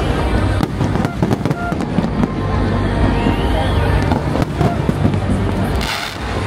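Aerial fireworks going off in quick succession: dense crackling and repeated bangs, with a short rising whistle about three seconds in and a brief hiss near the end.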